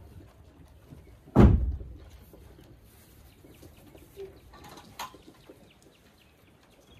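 A single heavy bang about a second and a half in, ringing out briefly, then a lighter sharp knock near five seconds, over low rustling in a hay-bedded goat barn.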